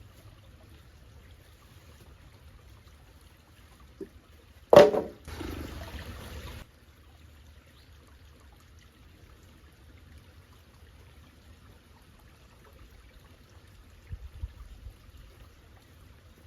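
A single loud knock, followed by about two seconds of noise that cuts off suddenly, over a low steady rumble. A few faint clicks come near the end.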